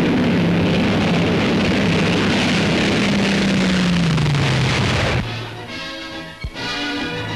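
Aircraft engine roar with a steady drone whose pitch falls as it passes. About five seconds in it gives way abruptly to brass fanfare music.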